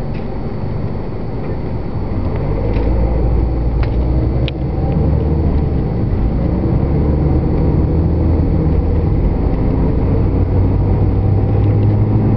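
Car interior road noise while driving at speed: a steady low rumble of engine and tyres that grows a little louder after about two seconds, with a few faint clicks.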